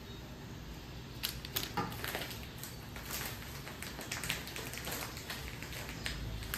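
Irregular light clicks and crinkles from plastic packaging being handled beside the stove.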